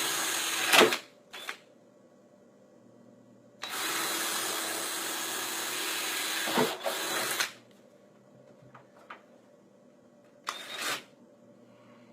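Power drill boring holes through a vinyl shutter, run in bursts: a short burst at the start, a steady run of about four seconds from about four seconds in, and a brief burst near the end.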